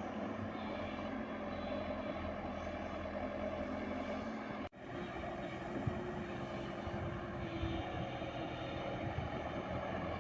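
JCB 120 tracked excavator's diesel engine running steadily under work, with the sound dropping out for a moment about halfway through.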